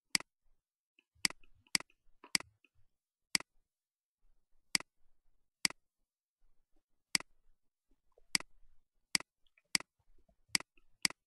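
Computer mouse button clicking: about a dozen short, sharp single clicks at uneven intervals, as the left button is pressed and released to grab and drag.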